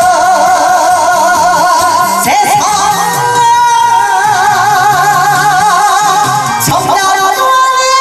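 A woman singing a Korean trot song into a microphone over a karaoke-style backing track through a PA speaker. She holds long notes with a wide, even vibrato.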